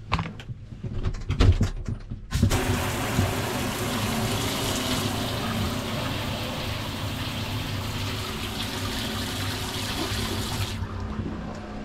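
Handheld shower sprayer on a hose running hot water onto a shower floor grate. A few clicks and knocks come first as it is handled, then the spray starts abruptly about two seconds in as a steady hiss, with a low hum underneath, until the water is shut off near the end.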